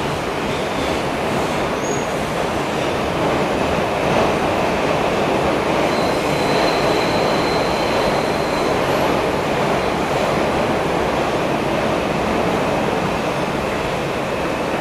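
Bombardier R142 subway car running through a tunnel, heard from inside the car: a steady rumble and rush of wheels on rail, with a faint high-pitched tone about six seconds in that lasts a few seconds.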